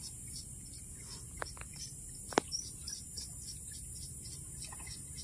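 Steady high-pitched drone of insects, with many short chirps over it and a sharp click about two and a half seconds in.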